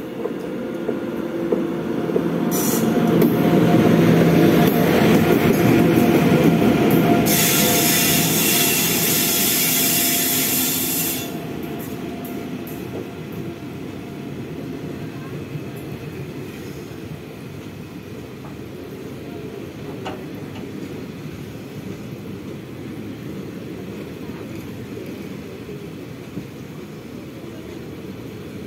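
An oncoming express train passing close on the adjacent track, heard from aboard a moving train. The electric locomotive's rush builds to its loudest in the first ten seconds, with a burst of hiss, then drops off about eleven seconds in as the coaches roll past with a steady rumble of wheels on rail.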